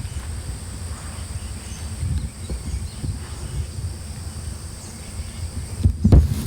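Insects droning in two steady high tones over a low rumble on the microphone, with a sharp knock shortly before the end.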